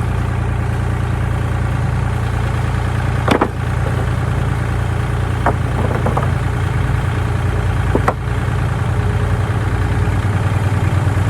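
Lawn mower engine running steadily at a constant speed, with a few sharp knocks about three, five and a half, six and eight seconds in.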